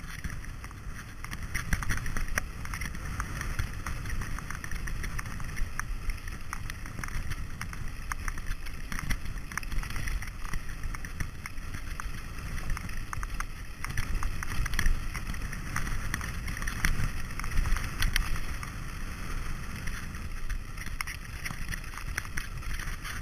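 Mountain bike riding down a rutted dirt and gravel track: tyres rumbling over the ground, with frequent rattles and clicks from the bike and wind noise on the microphone.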